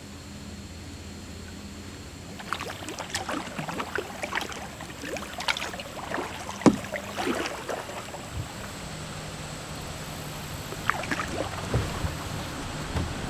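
Kayak paddling: water splashing and dripping from the paddle, heard as irregular small splashes and clicks over a steady hiss. The sharpest click comes about two-thirds of the way through.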